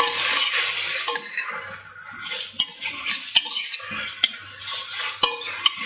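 Artichoke pieces and diced onions being stirred as they fry in oil in a stainless steel pot: a sizzling scrape, with the stirring utensil knocking against the pot about six times.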